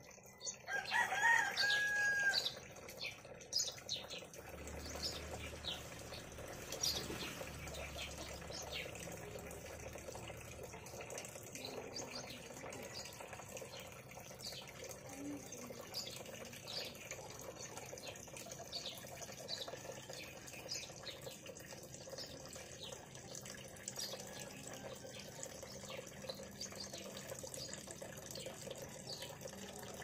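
A rooster crows once, loudly, right at the start. After it comes a steady splashing of water running into a bucket, with many small drips and splashes.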